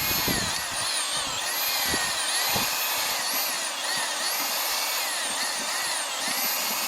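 Electric drill stirring wood ash into thickened used motor oil. Its motor whine sags in pitch and picks back up again several times as the thick mix drags on it.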